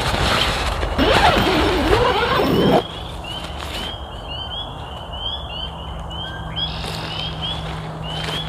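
Rustling and handling of camping gear inside a nylon tent for the first few seconds, cutting off suddenly. Then a background chorus of short, high rising peeps, several a second, from small animals around a swampy pond, with a faint steady hum underneath.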